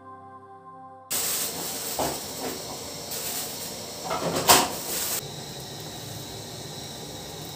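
Background music cuts off about a second in, giving way to a loud steady hiss with a few sharp clatters, the loudest near the middle. A little after five seconds the hiss drops to a softer, steady level.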